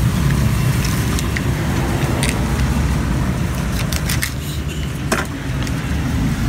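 Steady low drone of road traffic, a vehicle engine running, with several sharp knife taps on a wooden chopping board.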